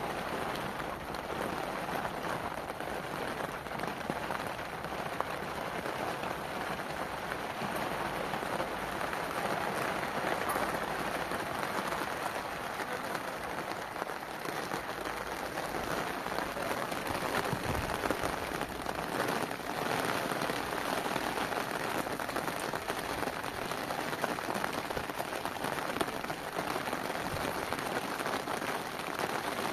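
Steady rain falling, an even, continuous hiss.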